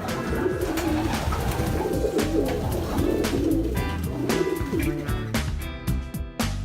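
Pigeons cooing, several low warbling coos one after another. Guitar music comes in about five seconds in.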